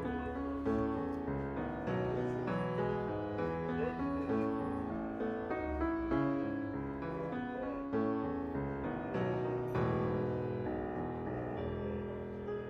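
Background music with piano.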